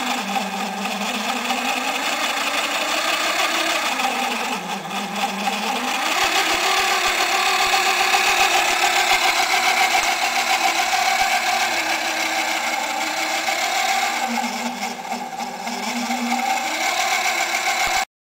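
Small motor of a homemade chipboard model crawler tractor running with a steady whine, slowing and dropping in pitch twice, about five seconds in and again near the end. It cuts off suddenly just before the end.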